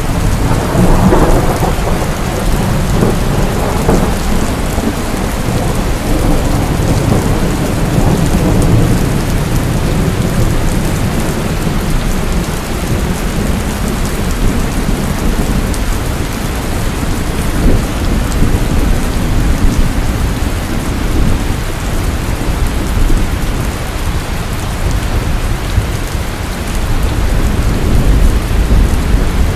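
Heavy rain pouring steadily, with rolling thunder rumbling underneath that swells in the first few seconds and again near the end.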